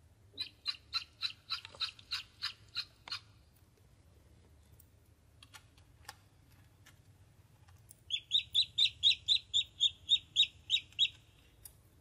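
Ducklings peeping: two runs of short, high peeps, three to four a second, each lasting about three seconds, the first near the start and the second about eight seconds in.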